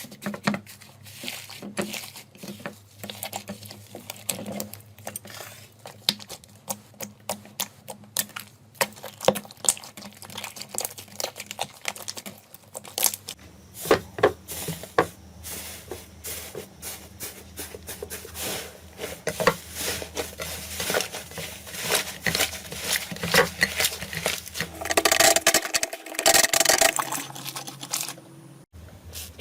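Slime being squished and pressed, making many small wet clicks and crackles, denser and louder about 25 seconds in.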